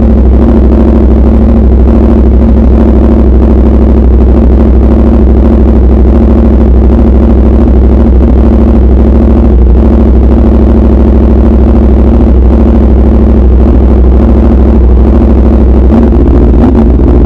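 Motorcycle engine breathing through an SC Project aftermarket exhaust, running steadily and loud while riding.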